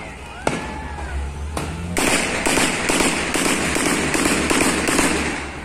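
Gunfire echoing across a valley: two single shots about a second apart, then from about two seconds in a sustained stretch of rapid shots in quick succession lasting about three and a half seconds, the loudest part, before it dies away.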